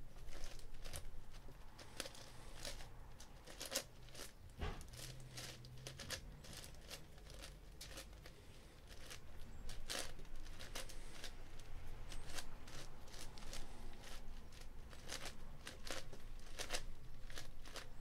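Meilong 10x10 Rubik's cube being turned by hand, its plastic layers sliding with a run of irregular clicks and scrapes.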